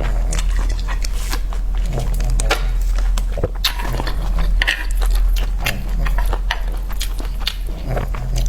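A person eating close to the microphone: chewing and biting, with many short crisp clicks and smacks scattered irregularly throughout, over a steady low hum.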